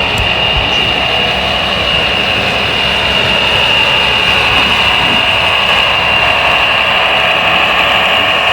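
A radio-controlled construction model's electric motor whines at one steady high pitch over a rough mechanical rattle and hiss.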